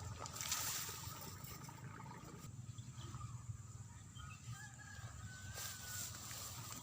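Water trickling and splashing in a rice field paddy, swelling louder twice, with faint short chirps in the background.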